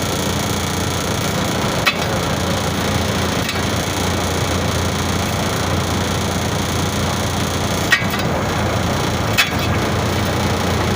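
A steady, loud drone with a low hum under it, broken by four sharp knocks or clicks a few seconds apart.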